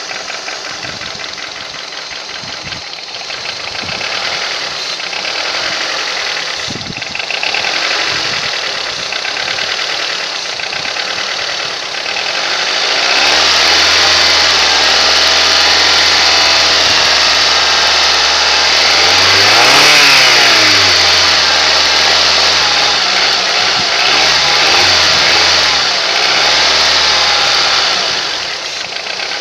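Honda K20A inline-four engine with a knock, idling at first. About halfway through it is held at higher revs, revved up and back down once, blipped a few times, and dropped back to idle near the end. The owner cannot tell what is knocking. The knock stays the same with the accessory belt removed, so the belt-driven accessories are ruled out.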